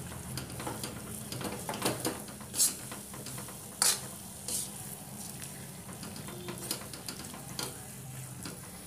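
Steel spoon stirring and scraping a thickening coconut and sugar-syrup mixture in a kadai, the mixture sizzling, with scattered sharp scrapes and taps of spoon on pan; the loudest tap comes about four seconds in. A steady low hum runs underneath.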